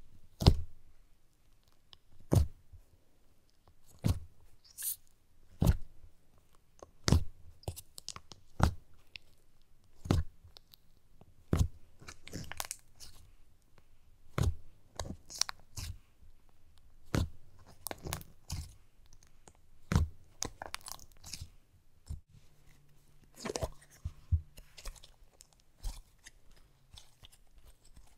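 Butter slime poked and pressed with fingers in its plastic tub, making short, sharp squishing pops about once every second and a half.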